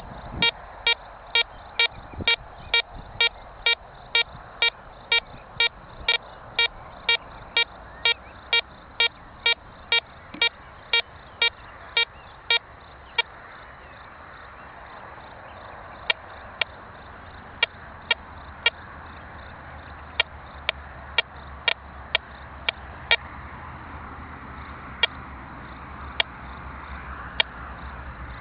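Golden Mask metal detector's audio signal: short, identical mid-pitched beeps, about two a second for roughly the first half, then sparser and irregular. The detector is running with audio discrimination on and is sounding off for a small denarius coin hidden under a stone.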